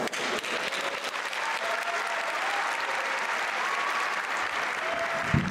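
Concert audience applauding steadily, with a single low thump near the end.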